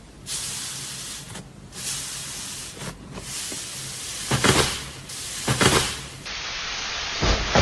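Slime being worked by hand: a steady noise with several louder swells as it is pressed and stretched.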